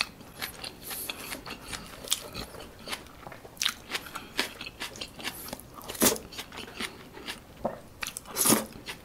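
Close-miked eating sounds: a person chewing with wet mouth smacks and finger licking, heard as many short, scattered clicks, with louder smacks about six and eight and a half seconds in.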